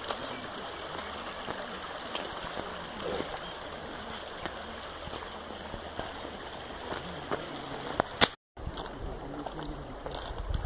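Shallow snowmelt stream running over gravel, a steady rushing hiss. Near the end two sharp clicks and a brief dropout break it off, and a low rumble follows.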